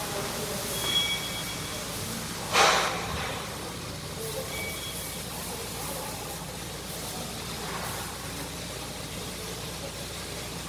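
Steady workshop background hum with small metal handling sounds as hydraulic control valve parts are fitted by hand, and one loud sharp knock about two and a half seconds in. A faint two-tone beep sounds about a second in and again a few seconds later.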